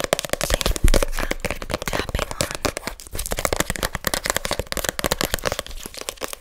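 A piece of paper crinkled and rubbed right on a microphone's grille, a dense run of crackles and sharp clicks.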